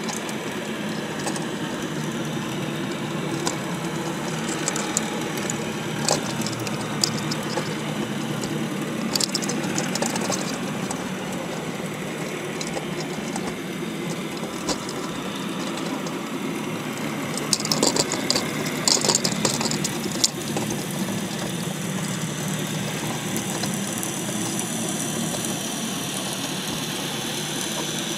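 Steady low motor drone heard underwater, with scattered sharp clicks and a burst of louder clicking and scraping about 18 seconds in.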